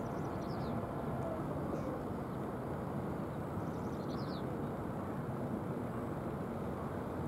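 Steady outdoor background rumble, even throughout, with two brief runs of high, falling chirps: one near the start and one about four seconds in.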